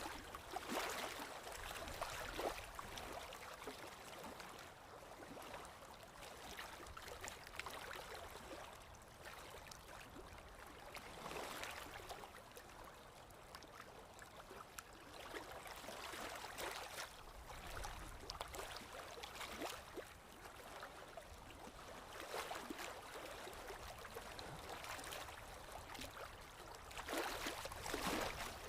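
Running water that rises and falls in soft swells every several seconds.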